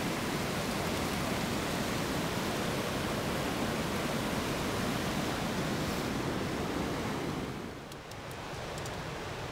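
Steady rushing roar of Hance Rapid on the Colorado River. About seven and a half seconds in it drops to a quieter rush, with a few light clicks.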